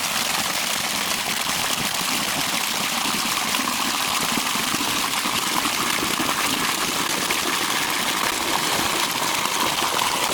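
Water running steadily from a tap into a bucket, filling it.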